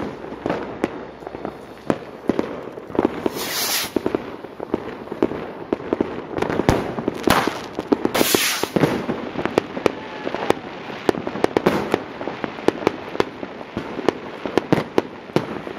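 Firecrackers and fireworks going off in a dense, irregular string of sharp cracks and bangs, with a longer hissing burst about three seconds in and again about eight seconds in.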